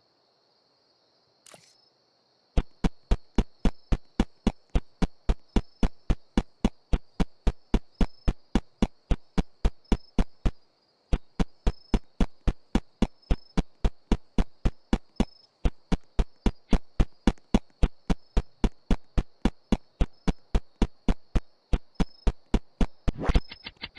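A long run of sharp, evenly spaced clicks, about three a second, starting about two and a half seconds in, pausing briefly twice and ending in a quick cluster, over a faint steady high whistle.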